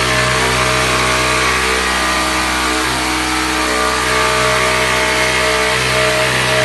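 Festool cordless jigsaw running steadily, sawing through wood.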